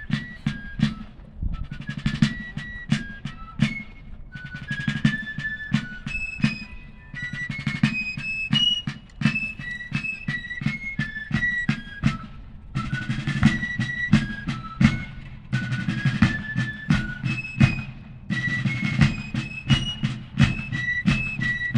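A fife and drum corps playing a march: several fifes carry a shrill melody in unison over the steady beating of field drums, in phrases separated by brief pauses.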